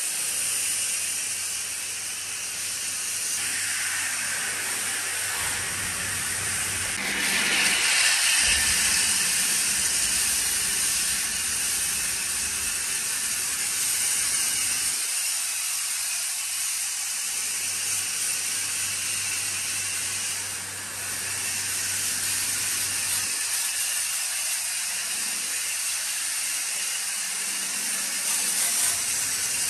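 Pressure-washer foam lance spraying snow foam onto a truck's chassis and wheels: a steady, loud hiss that changes tone a few times as the spray moves.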